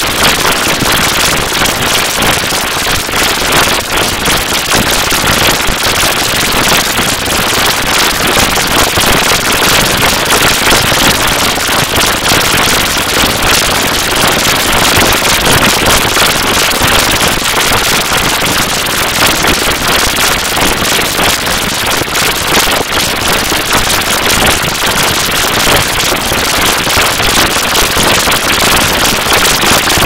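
The "DUH" sound effect repeated extremely fast and stacked over itself, blurring into a loud, continuous, dense stream of rapid hits with no breaks.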